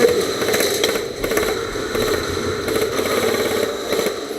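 Airsoft guns firing short rapid bursts, a quick run of clicks about one second in and again about three seconds in, over a steady mechanical hum.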